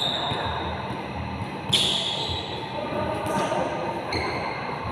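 Pickup basketball in a gym: sneakers squeaking sharply on the court three times, with a ball bouncing and voices echoing in the hall.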